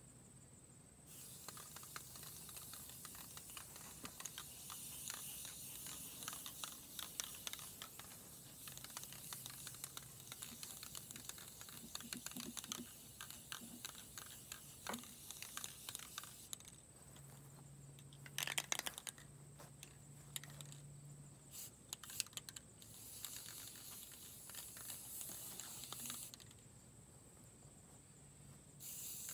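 Aerosol spray paint can hissing in long sprays with a crackly sputter, starting and stopping several times.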